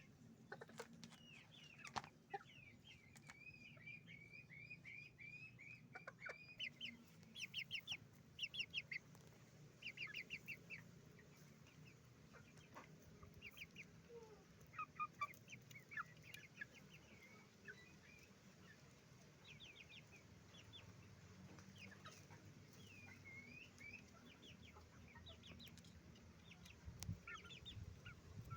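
Chickens clucking and calling, faint: many short clucks in quick runs with a few longer wavering calls, over a low steady hum.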